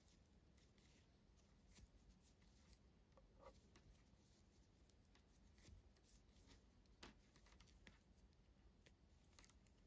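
Near silence, with a few faint soft ticks of metal knitting needles as stitches are worked.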